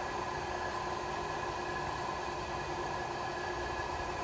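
Steady machine hum with several held tones over an even background noise, unchanging throughout.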